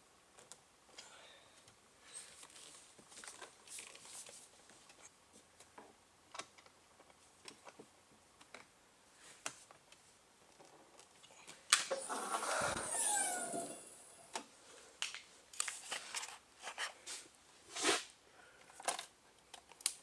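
Hands working on a car steering wheel while the airbag module's two retaining screws are tightened: scattered small clicks and rustles of tool and plastic. About twelve seconds in comes a louder scrape of about two seconds with short squeaky falling tones.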